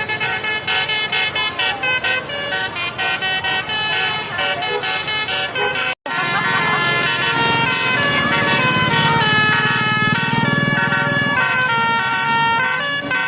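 Indonesian bus 'telolet basuri' multi-tone air horns playing a quick stepped melody. The sound cuts off about six seconds in, then horns play on with a low rumble underneath.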